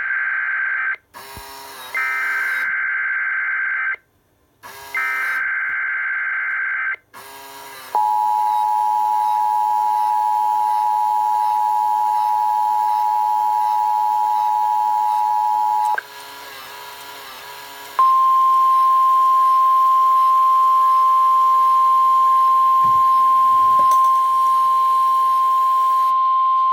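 Emergency Alert System alert being transmitted: three short bursts of the SAME digital header, then the steady two-tone EAS attention signal for about eight seconds, then a single steady tone like the NOAA Weather Radio 1050 Hz alert tone, lasting about nine seconds. This opens a relayed Child Abduction Emergency (Amber Alert).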